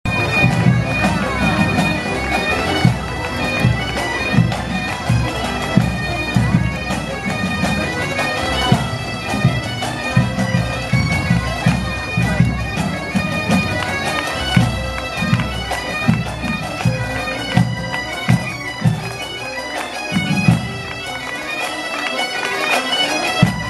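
A marching band of gaitas (bagpipes) playing a tune over steady drone notes, with drums beating a regular march rhythm about twice a second.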